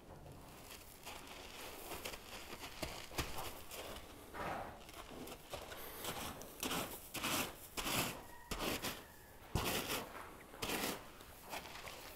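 Irregular rustling, scuffing and rubbing noises from a handler and a horse moving close together, with several brief louder scrapes between about six and eleven seconds in.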